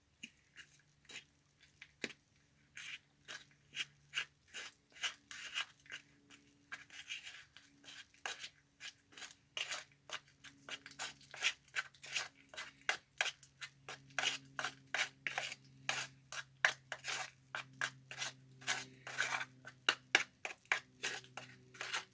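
A spoon stirring a thick paste of white Portland cement and water in a cup, a steady run of scraping clicks a couple of times a second that grows louder and quicker about halfway through.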